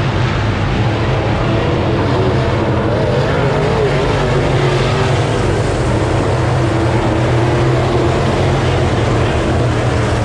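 Race car engines running hard on the track, several at once, their pitch wavering up and down as they go around.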